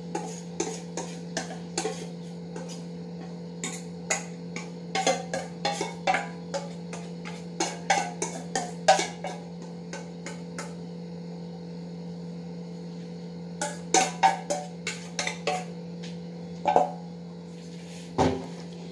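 Whisk and steel mixing bowl clinking and scraping as cake batter is poured and scraped into a baking tin: scattered light clicks and knocks, in two clusters, over a steady low hum.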